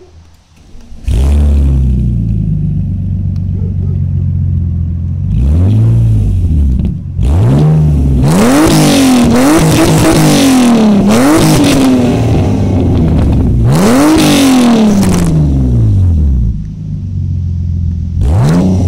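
Exhaust of a BMW E36 fitted with an M54B30 3.0-litre straight-six and a custom dual-tip exhaust. It comes in loudly about a second in, idles steadily, then is revved in a series of sharp blips that rise and fall quickly, with one more rev near the end.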